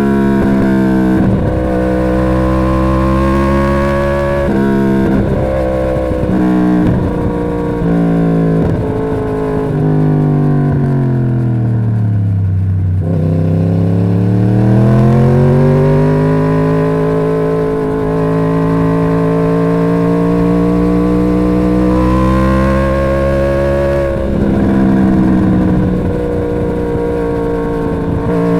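2011 Yamaha YZF-R1's crossplane inline-four running through the stock exhaust under changing throttle. The engine pitch jumps about in short revs at first, sinks smoothly to a low nearly halfway through, then climbs back and holds a fairly steady pitch.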